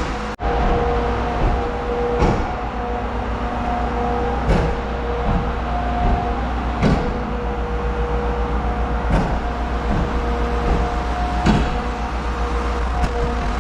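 A heavy vehicle engine running steadily, with a short clunk repeating about every two and a quarter seconds.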